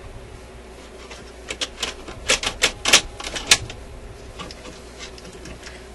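A run of irregular sharp clicks and taps, loudest and most crowded in the middle, from hands and a small bottle of alcohol working at a record changer's metal control mechanism, where the control arm is suspected of sticking against the plate.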